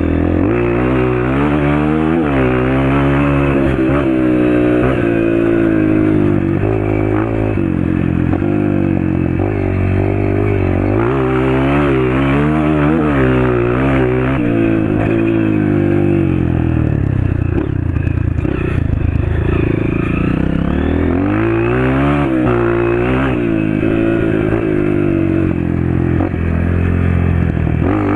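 Honda CRF230 dirt bike's single-cylinder four-stroke engine through an FMF Powercore 2 muffler, ridden hard: the revs climb again and again under throttle and drop back with each gear change or lift-off.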